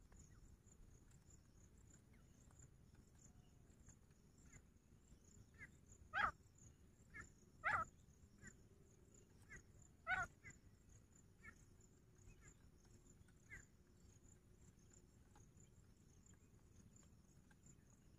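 A few short, sharp animal calls over near silence: three louder ones, about six seconds in, a second and a half later, and about ten seconds in, with fainter single calls between.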